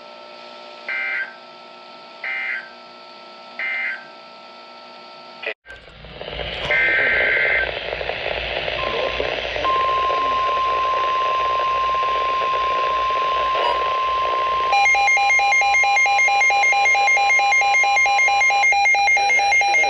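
Emergency Alert System audio from a weather radio. Three short screeching bursts of digital end-of-message data play over a faint hum, then it cuts. Static follows, with another short data burst, and then the long, steady 1050 Hz warning alarm tone; about halfway through, a second, rapidly pulsing electronic alarm sounds along with it.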